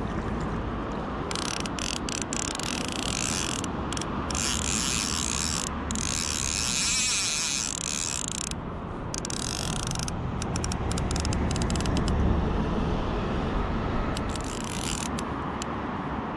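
Fly reel's click-and-pawl ratchet buzzing in stop-start spurts as line runs through it while a hooked salmon is played.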